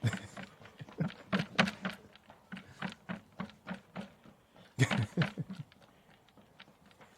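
Running footsteps on a path: quick, even footfalls at about three a second, with the heaviest steps about five seconds in, fading away after about five and a half seconds.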